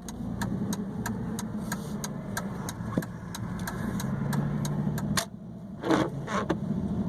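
Car engine running and road noise while driving, a steady low hum with scattered ticks and knocks, and a louder rush about six seconds in.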